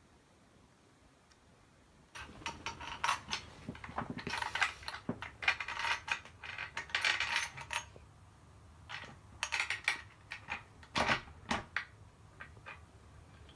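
Metal parts of a laminate floor cutter clinking and rattling as its frame is handled and put together: irregular bursts of sharp clicks and clinks, starting about two seconds in and thinning out near the end.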